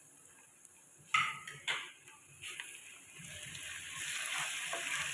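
Two sharp scrapes of a spoon on the karahi about a second in. Then onions, garlic-ginger paste and green chillies sizzle in hot ghee, the frying hiss building and holding steady.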